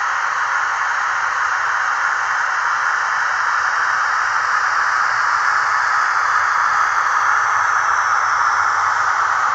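Steady hiss with a faint low hum from the sound decoder of a standing Trix HO-scale class 140 electric locomotive model, imitating the cooling-fan noise of an electric locomotive.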